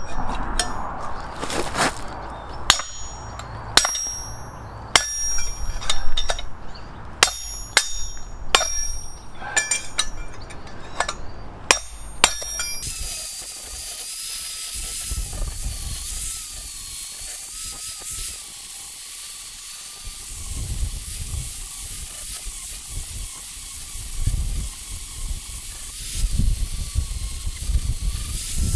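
Hammer blows on a cold chisel set against a steel railroad rail, a string of irregular ringing metal strikes. About 13 seconds in this gives way to an angle grinder running steadily as it grinds steel, its whine wavering slightly as the disc bites.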